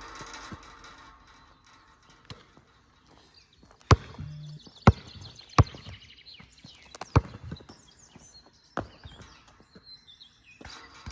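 A basketball bouncing on a hard surface, five sharp separate thuds spaced unevenly about a second or more apart.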